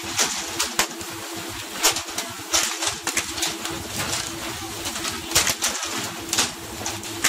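Repeated sharp splashes and slaps as tuna are jerked out of the water on pole-and-line rods and land on the boat's deck, one to three a second. Under them is a steady hum from the boat and the rush of churning water.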